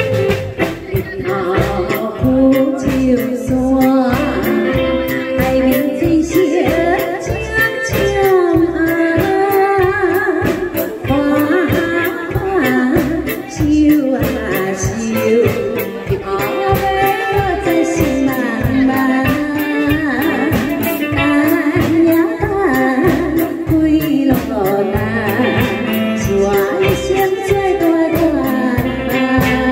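A woman singing into a microphone with a live band of drum kit and electric guitar, over a steady beat.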